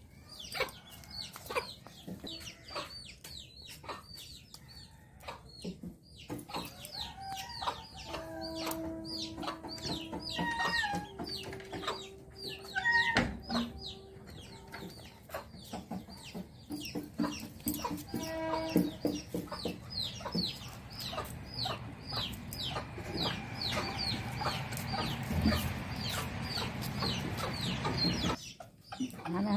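Domestic fowl calling: a long run of short, quick chirps, with a few longer held calls in between.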